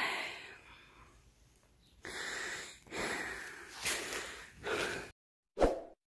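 Heavy, wheezy breathing of a person trudging through deep snow, a breath every second or so. It cuts off about five seconds in, followed by one short, loud sound effect.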